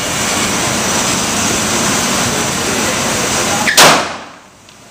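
A single shot from a Glock 17 9mm pistol, sharp and very loud, about four seconds in, after a steady hiss; the hiss drops away right after the shot.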